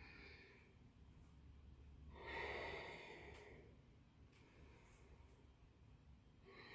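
A woman breathing through a yoga flow, with a strong, breathy exhale about two seconds in and fainter breaths around it.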